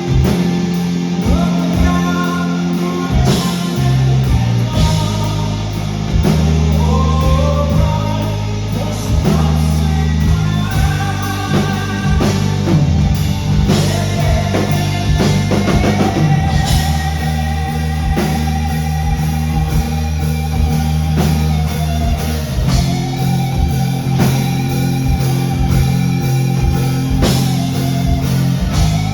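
Rock band playing live: an instrumental passage with a drum kit and guitars over a sustained bass line.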